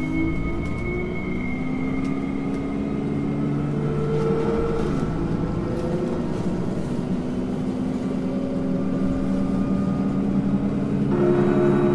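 Dark ambient drone of long held tones that slowly change pitch, over a steady low rumble. A new, brighter layer of tones comes in near the end.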